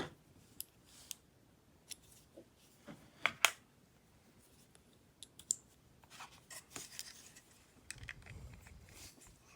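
Small metal tools being handled on a work surface: scattered sharp clicks and taps, the loudest a pair a little over three seconds in, then a run of light scraping and rubbing.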